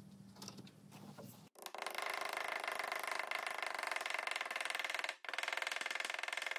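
A rubber mallet tapping a wooden X-shaped inlay down into its recess in a wooden slab: a dense, fast run of blows that starts about a second and a half in, with a brief break about five seconds in.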